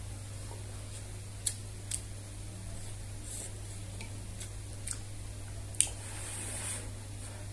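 Chopsticks and a metal spoon clicking against a clay pot of noodles, five short sharp clicks, then a soft slurp of noodles near the end, over a steady low hum.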